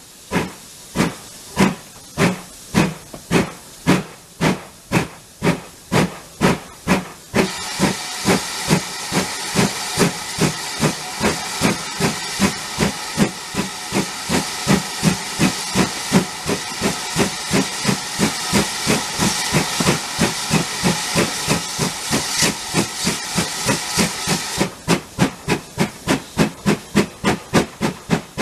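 GWR tank steam locomotive working under load, its exhaust chuffing in a strong, steady beat of about two a second that quickens slightly, heard close beside the engine. About seven seconds in, a loud steady steam hiss joins the beat and holds until a few seconds before the end.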